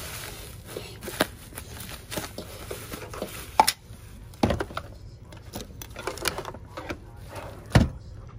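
Plastic bubble wrap and a plastic bag crinkling and rustling as they are pulled off a laminator, with irregular crackles and a few dull knocks, the loudest near the end.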